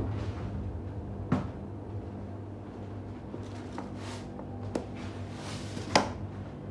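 A few short, sharp knocks and clicks over a steady low hum. One comes about a second in, two fall around four to five seconds, and the loudest comes about six seconds in.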